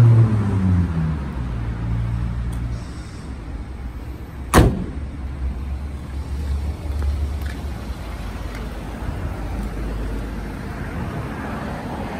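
The trunk lid of a 2008 Mazda Atenza sedan shut with a single sharp slam about four and a half seconds in, over a steady low rumble of vehicle engine noise; in the first second a vehicle's engine note falls in pitch.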